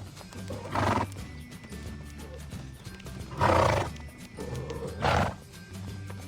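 A horse making three short, loud, breathy calls, about a second in, midway and near the end, over background music with steady sustained notes.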